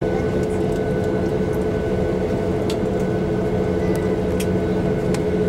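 Boeing 737-800 jet engines heard from inside the cabin while taxiing: a steady hum with a constant whine over a low rumble, and a few light clicks.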